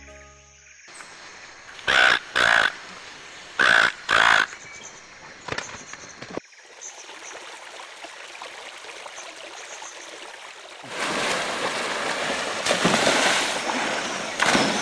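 A crow cawing four times in two pairs of harsh calls, followed by a quiet forest background with faint high bird or insect calls. Later on comes the steady rush of a rocky stream.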